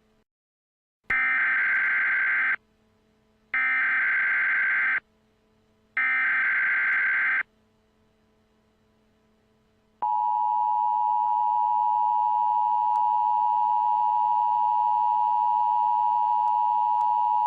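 Emergency Alert System tones for a tornado warning: three short bursts of warbling data tones (the digital alert header), then an eight-second steady two-tone attention signal.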